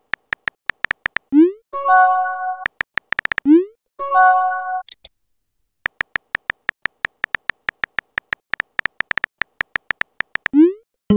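Texting-app sound effects: a run of quick, even keyboard tap clicks as a message is typed. Twice in the first five seconds a rising swoosh and a short chime sound as a message is sent, and near the end another swoosh.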